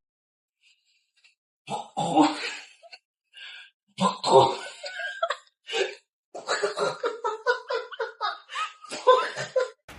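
A person laughing in short, repeated bursts, starting after about a second and a half of silence and growing into a quick run of laughs in the second half.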